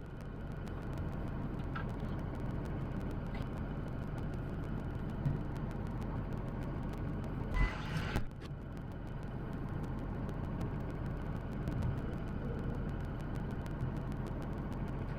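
Steady low rumble of vehicle engines running, with a short high beep and a couple of sharp clicks a little past halfway.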